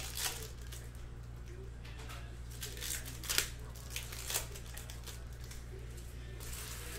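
Plastic wrapper of a Topps Chrome baseball card pack being torn open and crinkled by hand, in several short rustling bursts. A steady low hum runs underneath.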